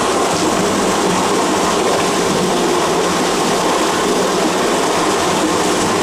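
Water pouring from an outlet in a concrete channel wall into a small river: a loud, steady rush.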